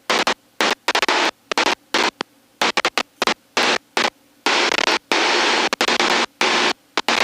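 Cockpit noise of an Extra 300 in flight, heard over the aircraft intercom: a loud rushing hiss that cuts in and out abruptly many times, with near silence in the gaps, as the intercom's voice-activated squelch opens and closes.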